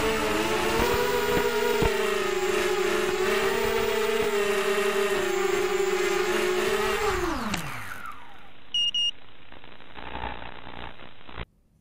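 ZMR250 quadcopter's brushless motors whining steadily, picked up by its onboard camera, then spinning down to a stop about seven seconds in as the quad is disarmed. Two short electronic beeps follow, over a quieter hiss, before the sound cuts off suddenly near the end.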